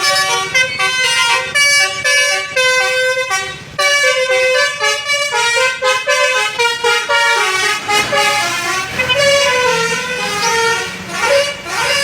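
Tour bus's 'basuri' telolet horn, a multi-trumpet melody horn, playing a quick tune of changing notes, with a sliding note near the end.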